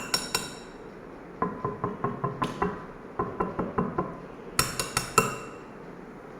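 Gold ring knocked against an imported marble slab: quick runs of light, hard taps, each with a short bright ring. A few sharper, brighter knocks come at the start and again about two thirds of the way through, with fast strings of softer taps between them.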